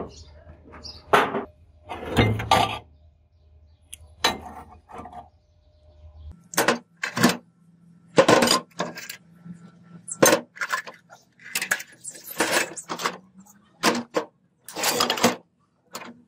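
Rusty scrap metal pieces in a steel bin clinking and clanking as they are rummaged through by hand, a string of sharp, irregular metal-on-metal knocks.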